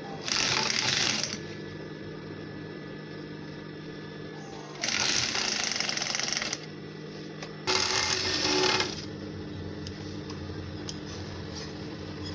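Industrial flatbed sewing machine stitching a trouser seam in three runs, about a second, nearly two seconds, and just over a second long, with a steady motor hum between the runs.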